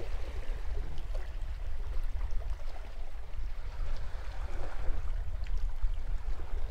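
Small sea waves washing and lapping against the base of a rocky point, with wind rumbling on the microphone.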